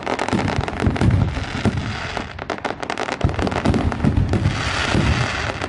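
Aerial shell fireworks going off: a dense run of rapid crackling pops over repeated low booms.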